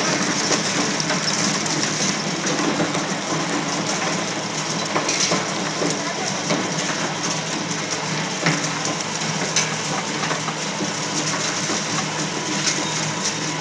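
Single-shaft shredder running under load, its toothed rotor chewing through scrap circuit board and cable with a steady grinding crunch. Sharp cracks stand out now and then as pieces break.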